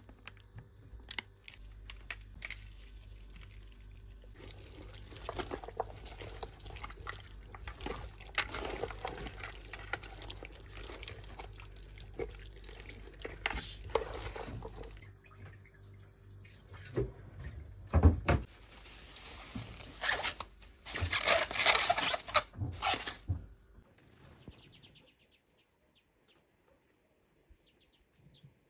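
Water pouring and splashing amid knocks of handling, loudest about two-thirds of the way through, then near silence for the last few seconds.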